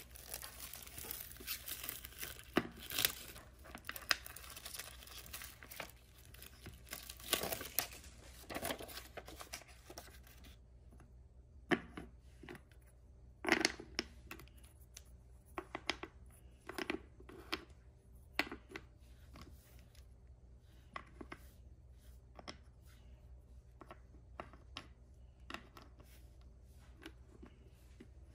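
Toy packaging being torn open and crinkled for about ten seconds, then scattered light clicks and knocks as the contents are handled.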